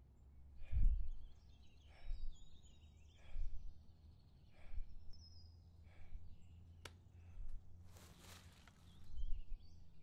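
A man breathing heavily through an open mouth, about one breath every second and a half, with small birds chirping in the background.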